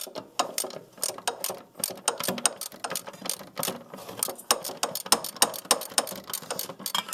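Hand socket ratchet clicking in quick irregular runs as bolts are backed out with short back-and-forth strokes of the handle.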